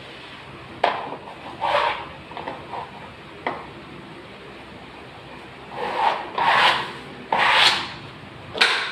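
A sponge rubbed over wallpaper in a series of short rubbing strokes, wiping and smoothing it onto the wall. Most of the strokes come in the second half, with a short sharp click about three and a half seconds in.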